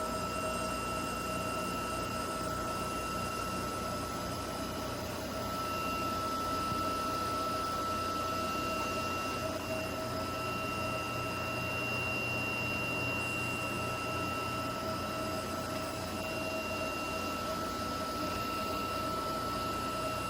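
CNC router spindle running steadily, with a high whine over an even rushing noise as the machine works the slab.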